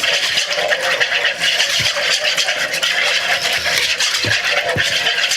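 A utensil stirring a liquid marinade of oil, soy sauce and honey in a bowl: a quick, continuous run of scraping and clicking against the bowl.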